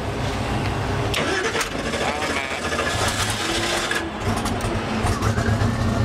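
A drag-race car's engine being started: it fires and runs unevenly, a rough start, dipping about four seconds in and then picking up again.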